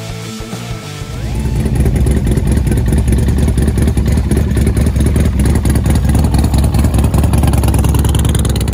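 Guitar music for about the first second, then a V-twin bagger motorcycle's engine running loud and steady with a fast, rough exhaust pulse.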